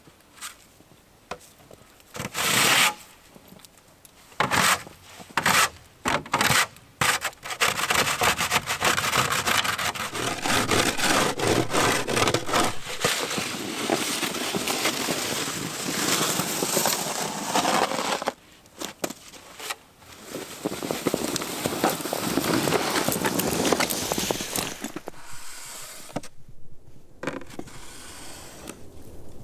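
Snow shovel scraping and pushing through fresh snow. At first there are a few separate short strokes, then long runs of steady scraping.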